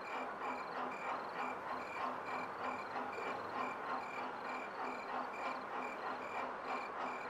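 Steady insect chirping, evenly repeated about twice a second, over a constant hiss.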